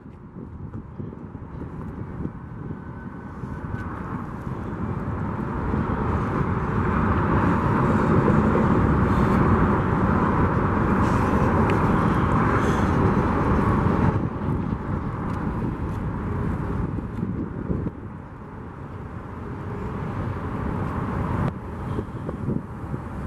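Union Pacific freight train of empty flatcars rolling past, a steady rumble of wheels on rail. It swells over the first several seconds, drops off suddenly about fourteen seconds in, then builds again.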